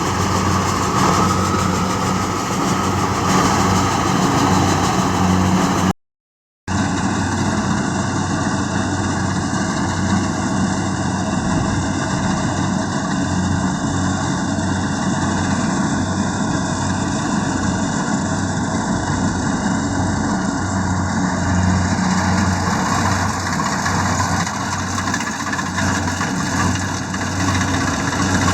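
Kubota DC-70G combine harvester's diesel engine running steadily, with a short cut to silence about six seconds in.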